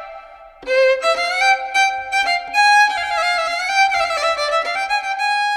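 Background music: a violin melody with sliding notes, dipping briefly before a new phrase starts about half a second in.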